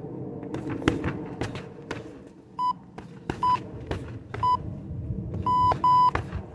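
Electronic workout timer beeping: three short, even beeps about a second apart, then two longer, louder beeps close together. Before the beeps, sharp strikes land on a freestanding heavy bag.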